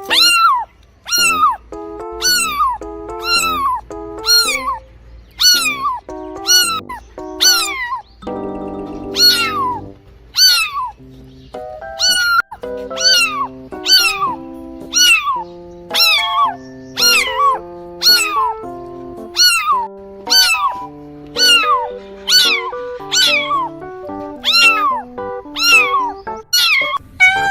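Domestic cat meowing: a short meow that falls in pitch, repeated about once a second, each call nearly the same, over a background music bed.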